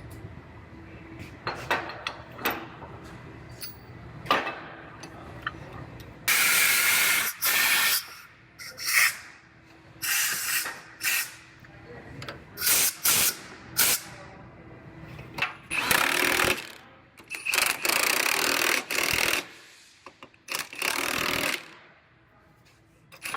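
Pneumatic impact wrench run in about eight short bursts from about six seconds in, tightening the bolts of the frame-bench clamps. A few metal knocks and clanks come before the bursts.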